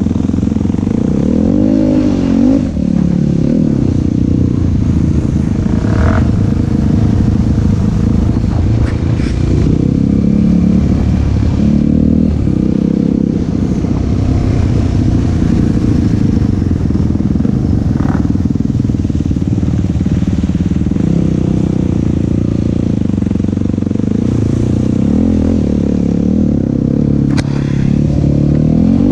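Yamaha YFZ450 SE sport quad's single-cylinder four-stroke engine running under load, its note rising and falling again and again with the throttle. A few sharp knocks come in along the way.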